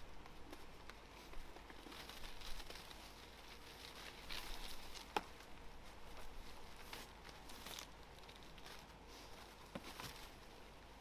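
Faint rustling and crinkling of dry leaves and twigs being handled, with scattered small clicks and one sharper snap about five seconds in.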